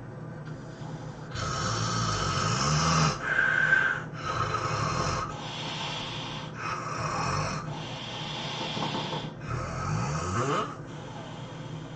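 A man snoring loudly in a fast run of noisy snores, each about a second long with short breaks between them.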